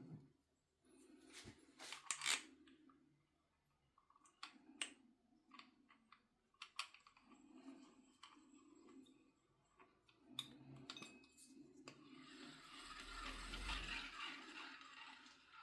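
Faint handling sounds from unboxing: scattered clicks and taps, then a longer rustle about twelve seconds in.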